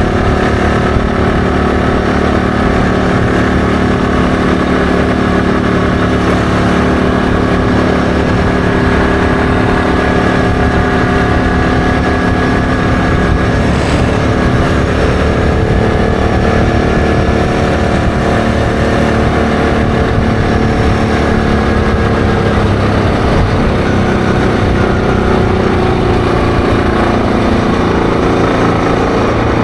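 ATV engine running steadily under way at cruising speed, its pitch falling gradually over the last several seconds as the machine eases off.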